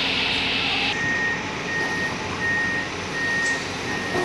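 An excavator's travel alarm beeps steadily, a little under two beeps a second, over the running diesel engine. The beeping starts about a second in, just as a steady hiss cuts off.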